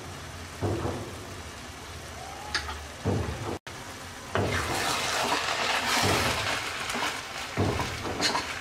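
Pot of broken rice and vegetables sizzling and crackling on the stove, quieter at first. It gets much louder after a short break about three and a half seconds in, with a spatula stirring through the rice near the end.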